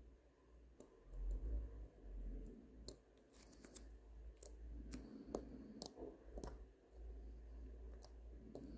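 Faint, scattered clicks and taps of metal tweezers against the small parts of a Miyota 8215 watch movement being assembled, most of them in the middle, over a low rumble of handling.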